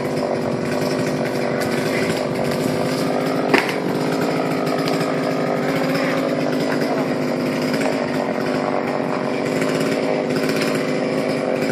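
Chainsaw engine running steadily at an even pitch, with one sharp knock about three and a half seconds in.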